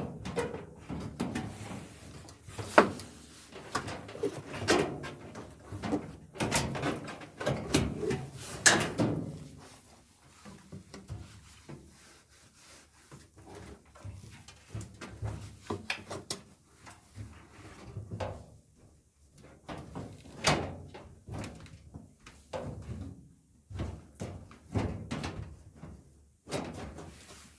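Irregular clicks, knocks and clunks of dryer parts and panels being handled and fitted during reassembly, busiest in the first third and sparser after.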